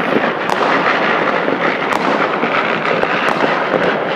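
Firecrackers and fireworks going off all over a city in a dense, continuous crackle. A few sharper bangs stand out, about half a second in, about two seconds in and about three seconds in.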